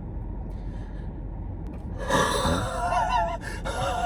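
A person making a deliberately weird vocal noise: about two seconds in, a breathy gasp turns into a wavering, high-pitched wordless sound, followed near the end by a second, shorter wavering one. A steady low hum lies underneath.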